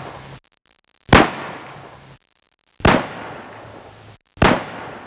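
Three loud, sharp bangs about a second and a half apart, each trailing off in a noisy, crackling decay and each cut off abruptly into a moment of silence before the next.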